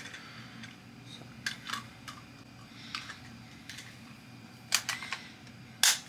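Camera gear being handled: a scattered series of small plastic clicks and clacks, with a few in quick succession near the end and one louder clack just before it ends.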